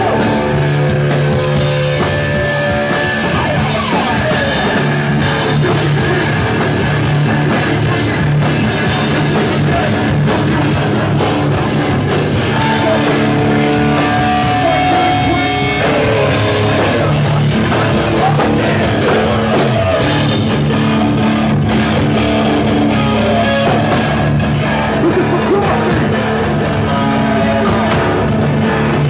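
Hardcore band playing live at full volume: distorted electric guitars, bass and drums, with vocals at times. About two-thirds of the way through, the cymbal wash thins out while the guitars and drums carry on.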